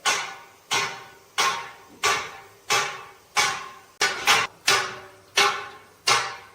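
Hammer blows on steel in a steady rhythm, about three strikes every two seconds, each ringing briefly, with one quick extra strike about four seconds in.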